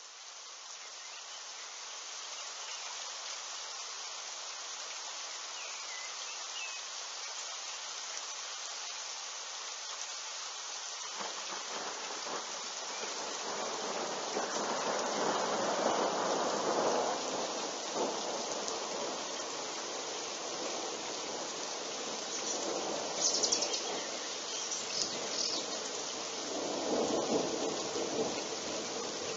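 Steady hiss of rain, then about eleven seconds in a long thunder rumble builds, swells to its loudest a few seconds later, and rolls again near the end. The lightning strike is about 2.3 km away.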